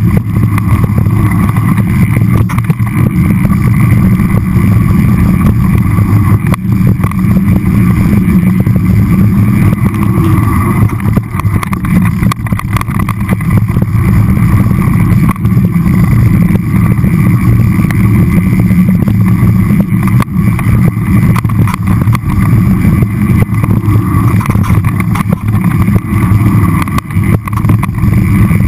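Mountain bike rolling downhill over rough dirt singletrack, heard through the camera riding along: a loud, steady rumble of wind and trail vibration with constant small rattles and knocks.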